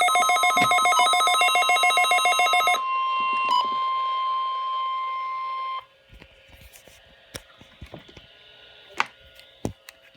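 A weather radio receiver's alert beeping in fast, shrill pulses, followed by the steady single-pitch NOAA Weather Radio warning alarm tone from its speaker for about three seconds. The tone cuts off suddenly, leaving a few faint clicks. It is the alarm sounded for the weekly receiver test.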